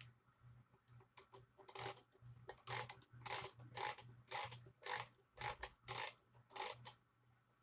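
Mechanical alarm clock's winding keys being turned, its click-and-ratchet winding work giving a run of short ratcheting strokes about two a second. The clock ticks faintly and steadily underneath.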